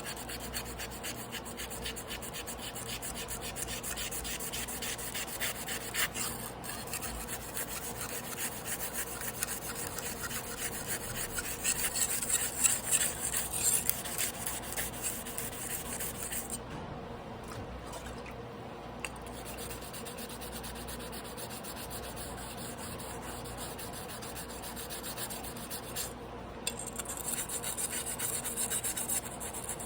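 Damascus carbon-steel sashimi knife blade being rubbed back and forth by hand on a whetstone, a continuous run of grinding strokes that grows louder about twelve seconds in.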